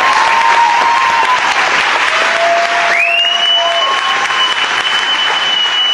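Audience applauding loudly, with several long held high tones over the clapping. The highest of them comes in about three seconds in.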